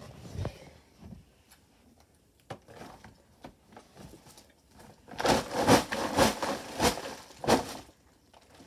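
Gift bag rustling and crinkling as someone rummages through it, with faint taps and handling noises at first, then a loud run of crinkles from about five seconds in until nearly the end.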